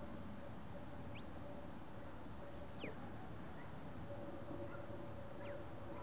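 Shepherd's whistle commands to a working sheepdog: a long high whistle held steady that drops sharply at its end, then a shorter one of the same shape about two seconds later.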